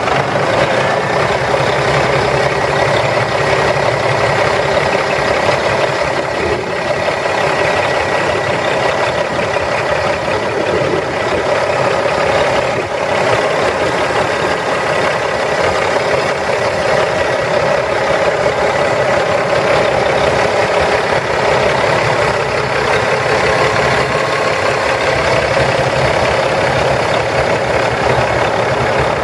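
Cummins ISX 14.9 L inline-six diesel engine of a Peterbilt 386 semi truck idling steadily, heard from the open engine bay, with a steady high whistle over the engine note.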